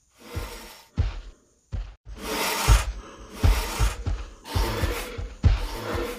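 Film-style dinosaur sound effects: repeated screeching roars, each about half a second long and most starting with a low thud, coming roughly once a second, over a music track.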